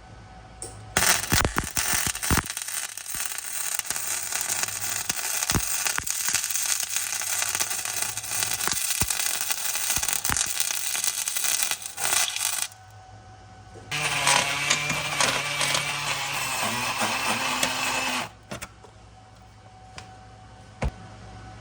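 Wire-feed (MIG) welder arc crackling and spitting as a bead is run on thin golf-cart frame tubing, for about eleven seconds. After a short pause, a second stretch of about four seconds follows with a faint steady whine in it.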